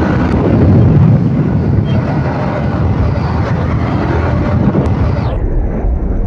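Wind rushing over the microphone of a Yamaha motorcycle ridden at speed, with the bike's engine running underneath: a loud, steady rush.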